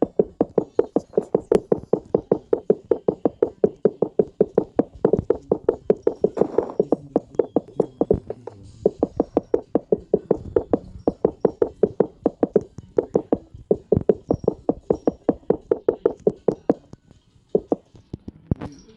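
Rapid, even knocking, about five hard taps a second, with a short break about eight and a half seconds in and stopping near the end.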